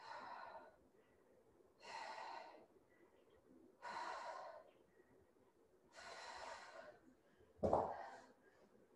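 A woman breathing hard through dumbbell skull crushers: four long, even exhales about every two seconds, in time with the reps. Near the end comes one louder, short thump.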